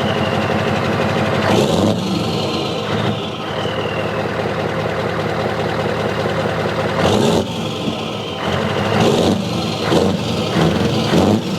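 Radio-controlled earthmoving model running: a steady engine-like hum, a motor whine that falls in pitch twice in the first few seconds, and several sharp knocks and clunks, likely from the model's parts or the soil it is moving.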